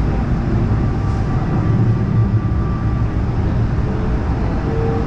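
LA Metro A Line light-rail train running between stations, heard from inside the car: a steady, even noise from wheels and running gear, strongest in the low end.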